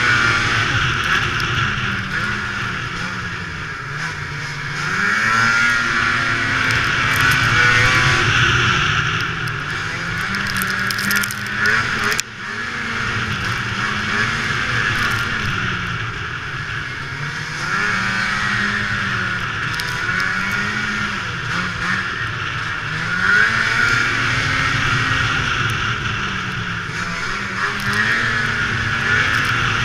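Two-stroke engine of a 2002 Ski-Doo MX Z snowmobile running along a trail, its pitch rising and falling again and again as the throttle is opened and eased off, over a steady rush of wind and track noise.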